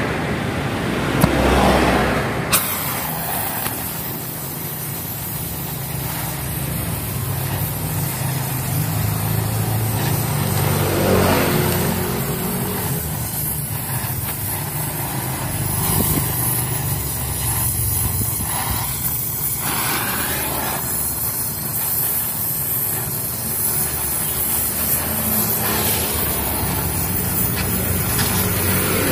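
Carbide (acetylene) gas welding torch burning with a steady hiss as it heats and welds a broken motorcycle exhaust pipe, with a low steady drone underneath.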